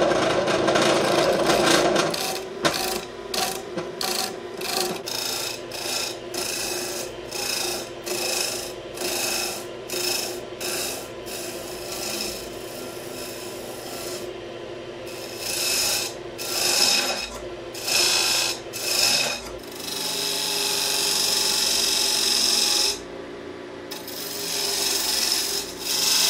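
Wood lathe running while a hand-held turning tool scrapes a belt groove into the rim of a spinning plywood disc to make a pulley. The tool bites in short strokes about twice a second, then in a longer continuous cut that stops suddenly near the end and starts again.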